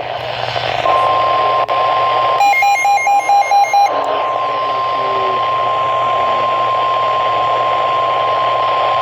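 NOAA Weather Radio's steady 1050 Hz warning alarm tone, heard through a receiver with a constant hiss of radio static. The tone marks the start of a new urgent alert broadcast. About two and a half seconds in, a quick run of about seven short beeps sounds over the tone.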